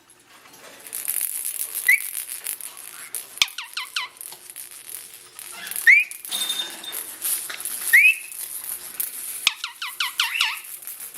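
Blue Indian ringneck parakeet calling: three short rising chirps, and twice a quick run of falling whistled notes.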